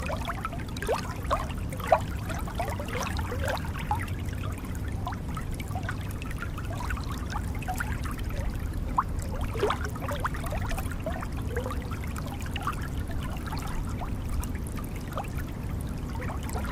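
Forest stream trickling and gurgling over stones, many small bubbling splashes over a steady rush of flowing water.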